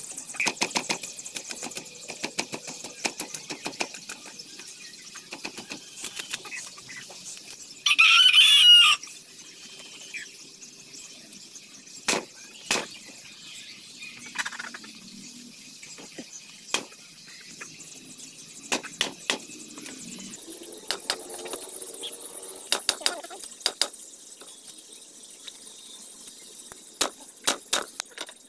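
Knife blade scraping the scales off a whole red snapper: runs of quick, scratchy strokes that come and go. About eight seconds in, a chicken gives one loud squawk lasting about a second.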